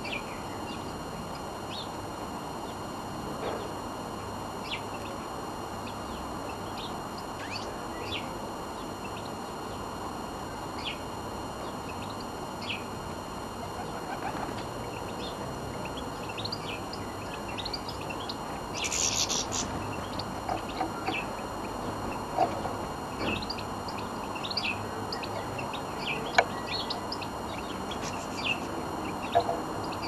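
Small songbirds chirping: short high calls scattered throughout, with a denser burst of twittering about two-thirds of the way through, over a steady background hiss. A few sharp clicks come late on.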